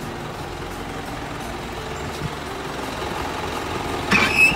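Isuzu Forward truck's diesel engine idling steadily. Near the end comes a short, louder high-pitched metallic squeak.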